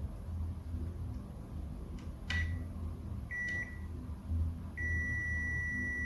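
Multimeter continuity beeper sounding at one steady pitch: a short beep a little over two seconds in with a click, another short one about a second later, then a long held beep through the last second or so. The meter is signalling a connection between the probes on the laptop board's pins. A low steady hum runs underneath.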